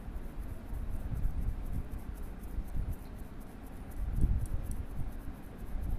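Water poured from a steel bowl into a pan of tomatoes and ground mustard paste cooking in oil, with faint rapid crackling throughout and a low rumble that swells about four seconds in.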